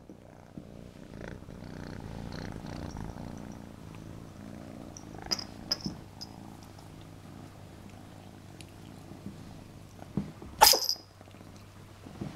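Kitten purring steadily, with two short sharp sounds around the middle and one loud, sudden sneeze near the end.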